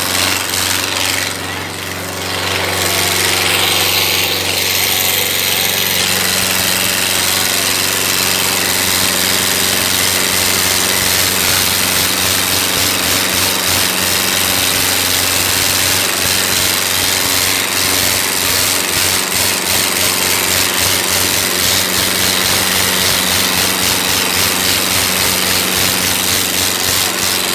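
Sonalika DI 750 III Sikander tractor's diesel engine running loud and steady under heavy load as it drags a cultivator through sandy soil.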